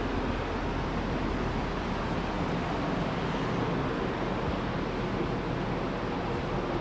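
Steady rushing air noise with a low hum, the sound of ventilation fans running in a large timber shed.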